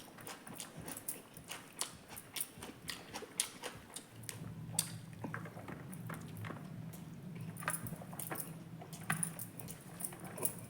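Close-up eating sounds: a person chewing and biting food, with many short wet mouth clicks. A low steady hum comes in about four seconds in and stays.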